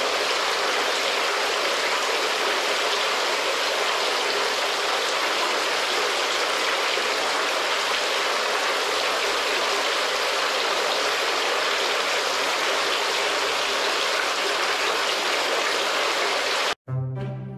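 Fountain water raining down in drops and spray into a water-filled stone basin: a steady splashing hiss. Near the end it cuts off abruptly and orchestral music with brass begins.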